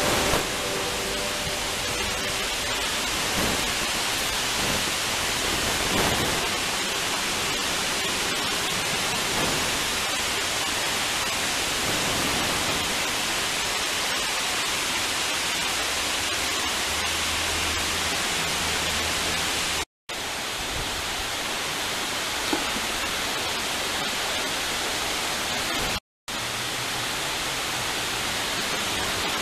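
Water rushing over a low dam spillway: a steady, even rush of falling water, broken twice by a split-second dropout in the last third.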